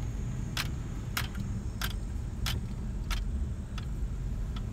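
Inside a car's cabin: low, steady engine and road noise as the car drives slowly, with a turn-signal indicator ticking evenly, about one click every two-thirds of a second.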